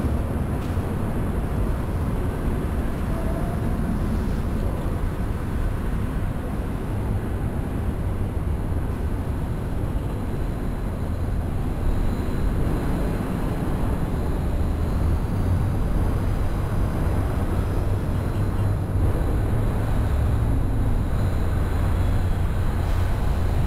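Steady city street noise heard from a moving bicycle: a continuous low rumble of traffic and wind with no distinct events. It gets a little louder about halfway through.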